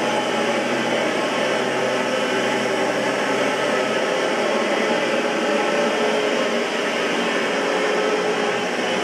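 Oreck XL21 upright vacuum cleaner running steadily, a continuous motor drone and rush of air with no change in pitch.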